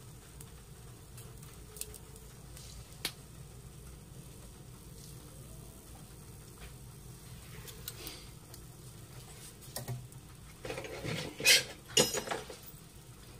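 A miniature dosa sizzling faintly on a tiny iron griddle, with a few isolated clicks. Near the end comes a quick cluster of sharp clinks and knocks from small steel utensils.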